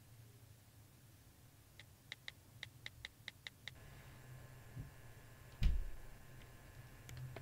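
Smartphone on-screen keyboard tap clicks as a message is typed: a quick run of about eight taps, then a faint steady tone sets in. A single heavy low thump comes about two seconds after the taps and is the loudest sound.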